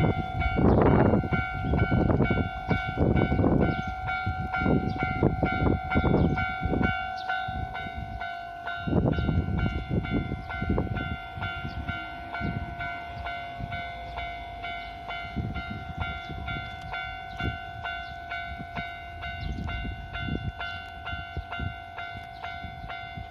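Level-crossing warning bell ringing steadily on one repeated tone while a Nankai Koya Line train passes, its wheels clattering heavily over the rail joints for the first ten seconds or so. The clatter then thins out and fades as the bell keeps ringing.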